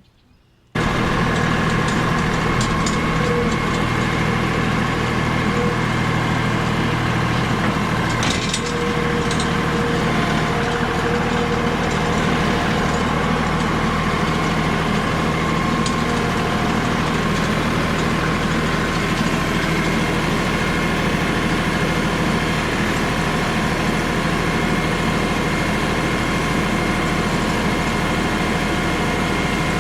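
LS tractor's diesel engine running steadily, cutting in suddenly just after the start.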